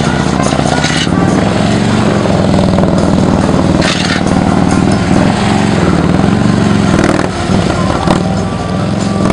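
Police touring motorcycle's engine running at low speed, its revs rising and falling again and again as the rider works the throttle through tight slow turns.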